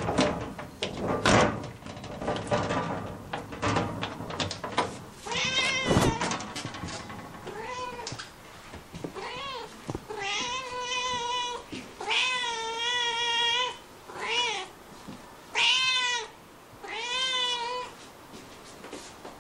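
A cat crunching on cat grass for the first few seconds, then a string of about seven meows, several of them long and drawn out.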